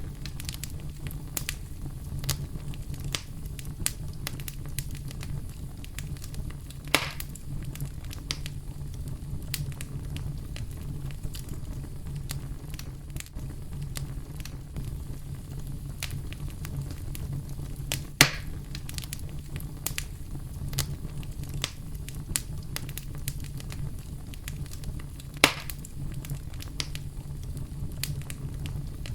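Campfire crackling with scattered sharp pops, three of them louder, about 7, 18 and 25 seconds in. Underneath runs a steady deep rumble of brown noise.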